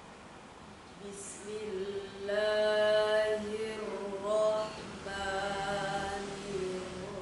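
A young female voice reciting the Quran in the melodic tilawah style, starting about a second in after faint hiss, with long held, ornamented notes separated by short pauses.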